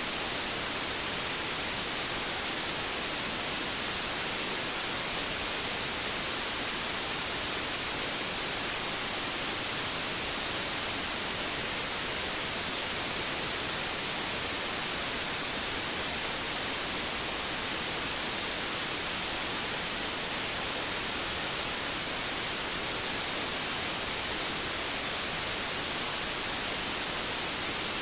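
Steady white noise: an even, unchanging hiss, brightest in the high end, played as a sleep aid.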